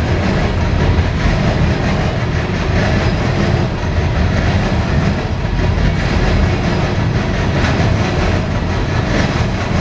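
Coal cars of a CSX freight train rolling past at close range: a steady, loud rumble of steel wheels on the rails.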